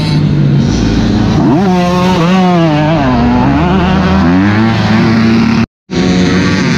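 Motocross bike engine running hard, its pitch sweeping up and falling back repeatedly as the throttle opens and closes; the sound drops out for a moment near the end.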